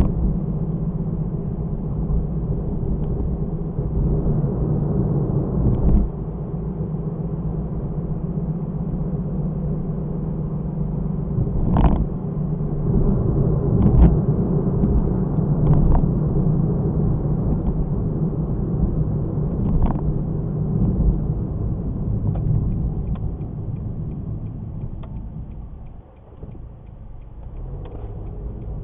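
A car driving, heard from inside: a steady low engine and road hum with a few short knocks. The hum eases off and drops sharply shortly before the end.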